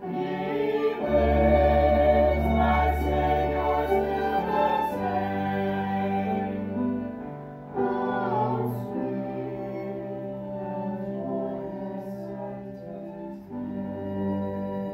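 Voices singing a hymn, accompanied by piano and bowed strings: cello, double bass and violins.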